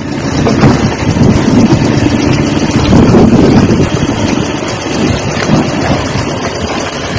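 Motorboat engine running, with heavy wind noise buffeting the microphone.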